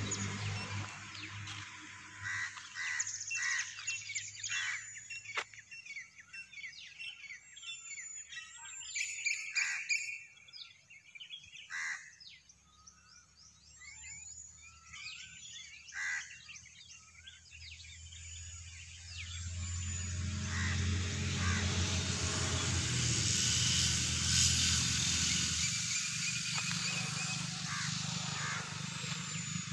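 Birds chirping and calling outdoors, with many short, sharp calls and quick chirps in the first part. About two-thirds of the way in, a steady rushing noise with a low hum rises and largely covers the birdsong.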